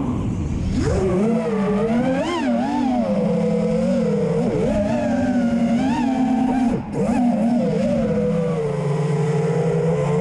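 Realacc Real5 5-inch FPV racing quadcopter's brushless motors and propellers whining, the pitch swooping up and down with the throttle as it flips and rolls. The whine drops out briefly about seven seconds in.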